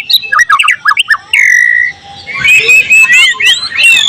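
White-rumped shama (murai batu) singing a fast, varied song of quick up-and-down whistled notes and harsher calls, with one long held whistle about a second and a half in. Denser rapid notes follow near the end.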